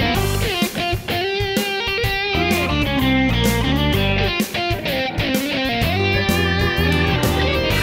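Background music led by an electric guitar, playing a melody with bending, wavering notes over a steady beat.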